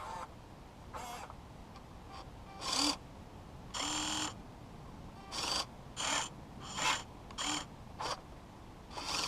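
Electric motors of a Huina 1580 V4 RC excavator whining in about ten short, unevenly spaced bursts.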